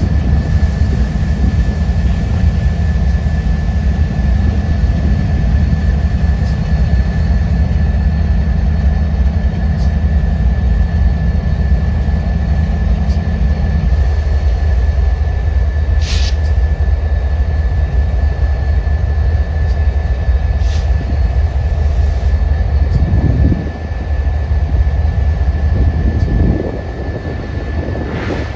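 A train running past, with a heavy steady low rumble and a thin steady whine. A few sharp clicks come through, the deepest part of the rumble eases about halfway, and the sound drops off near the end.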